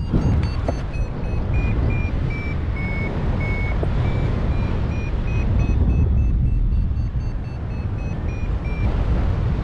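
Paragliding variometer beeping in lift: a quick train of short beeps, about two or three a second, their pitch dipping and the beeps lengthening near the middle, then rising again and falling toward the end. Wind buffeting the microphone rumbles underneath.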